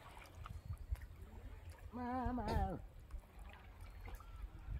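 Faint water trickling and lapping around a man wading in a shallow pond, over a low rumble. About two seconds in comes a brief, wavering voice lasting under a second.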